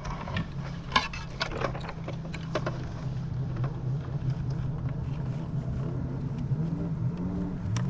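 Steady low motor hum that dips and rises in pitch near the end, with scattered clicks and knocks over it.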